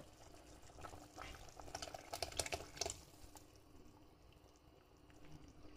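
Cornflour slurry poured from a cup into a pot of simmering vegetable soup: faint trickling and small splashes over the soup's quiet bubbling.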